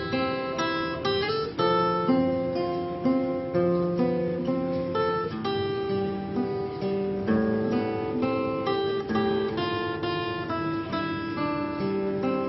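Acoustic guitar playing a slow fingerpicked melody over bass notes, each note plucked and left to ring.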